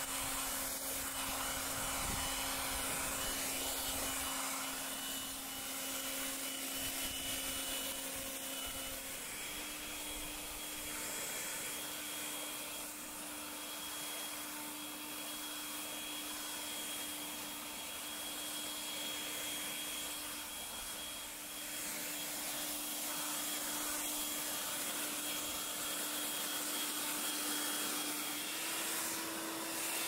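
Corded electric Bosch UniversalGardenTidy 3000 garden blower-vacuum running, blowing leaves: a steady motor whine over rushing air. The whine steps up slightly in pitch about a third of the way in and again near the end.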